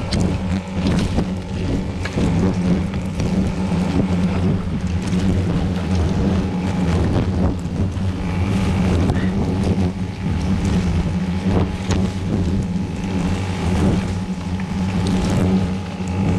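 Buzzing of many lesser banded hornets flying close around the microphone, a steady low drone: the colony is agitated and attacking after its nest in the grass has been disturbed.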